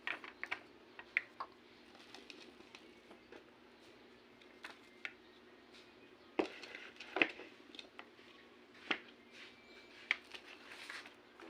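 Scattered light clicks and taps of cutlery and dishes, a few seconds apart, as a meal is served and eaten.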